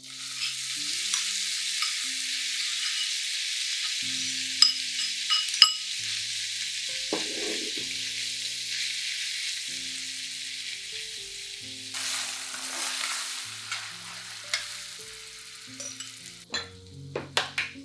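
Minced beef sizzling in a hot stainless steel frying pan, stirred with a metal spoon that clicks and scrapes against the pan a few times. The sizzle swells again about twelve seconds in, and by the end liquid is bubbling in the pan with the beef.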